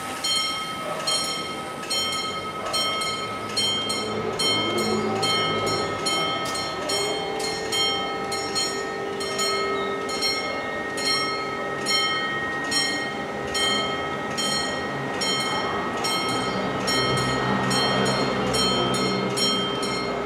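Warning bells of an Italian TD96/2 level crossing, several bells ringing with repeated strikes that overlap, while the barriers come down. A steady humming tone joins about a third of the way in.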